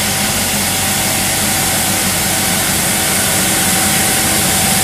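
Johnston street sweeper at work: its engine running steadily under an even, loud hiss of the sweeping gear, with a steady hum beneath.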